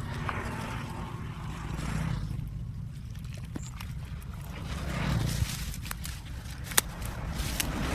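Rustling and scraping in wet weeds and shallow water, over a steady low rumble. There is a single sharp click near the end.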